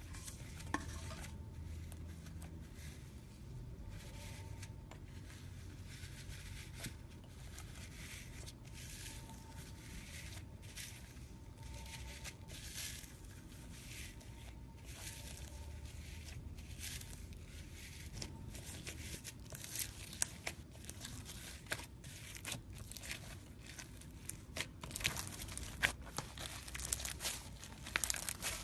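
Slime being squished and stretched by hand, making a continuous soft crackling with scattered sharp clicks that come thicker and louder over the last third.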